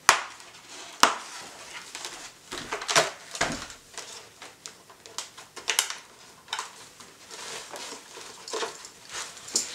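Motorcycle helmet's removable liner and padding being pulled out: a series of sharp clicks and snaps as its fasteners pop loose, with handling of the foam padding in between.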